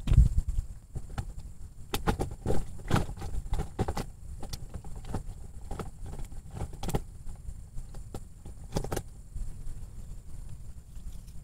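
Close handling noise from gloved hands working a swallowed hook out of a snakeskin gourami: a run of short clicks and rustles over a steady low wind rumble on the microphone.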